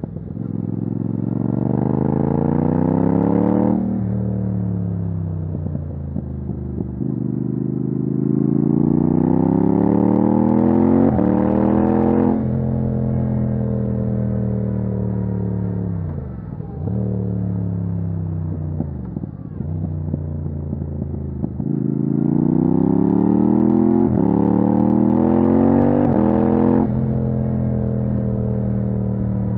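Yamaha MT-07's 689 cc parallel-twin engine through an open titanium Akrapovic exhaust with no dB killer, accelerating hard: the revs climb three times and each climb is cut off sharply when the throttle shuts. Between the second and third pulls the revs fall away slowly, with two short dips.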